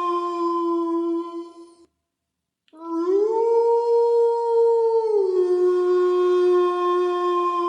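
Canine howling, long and steady in pitch. One howl stops about two seconds in. After a short silence another begins, rises, holds a higher note, then slides back down to its first note about halfway through and carries on.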